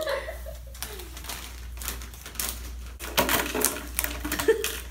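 Close, ASMR-style tapping and scratching of fingers on a desk and papers: a scatter of light clicks that comes thicker in the second half.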